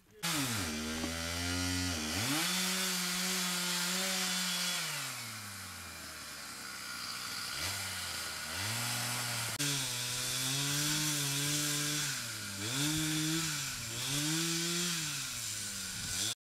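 Chainsaw revving up and down while pruning trees. It eases back toward idle around the middle, revs up again in several surges, then cuts off abruptly near the end.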